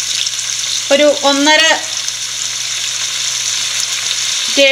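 Diced onions and capsicum, already softened, sizzling steadily in hot oil in a frying pan, with a wooden spatula stirring them.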